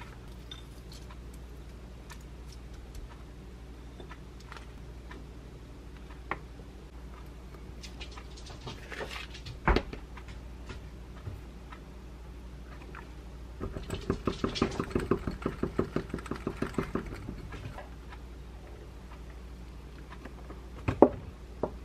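Kitchen food-prep sounds: scattered light clicks and rustles, a sharp knock about ten seconds in, then milk poured from a carton into a glass, glugging rapidly for about three seconds, and two sharp clicks near the end.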